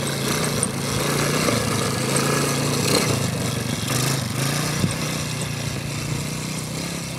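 Small 125cc four-stroke quad (ATV) engine running at a steady, low-throttle drone as the quad drives across grass, growing fainter in the second half as it pulls away.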